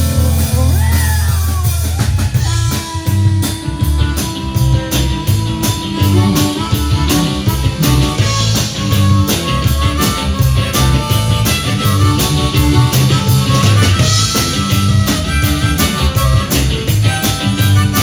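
Live rock band playing an instrumental break, with a drum kit keeping a steady beat under electric guitar and bass.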